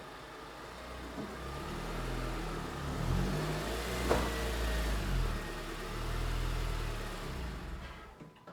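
A car engine running, its pitch stepping up and down as it revs, louder through the middle and dying away near the end, with a sharp click about four seconds in.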